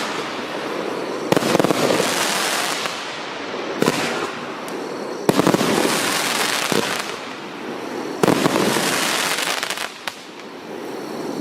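Firework barrage cake firing: four sharp bangs a second or more apart, each followed by a second or two of dense crackling as the shot bursts, fading before the next.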